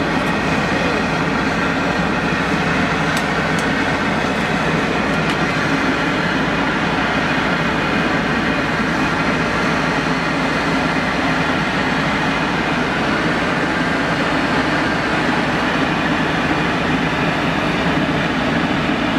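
Steady, unbroken street noise from traffic around a roadside stall, holding an even level throughout.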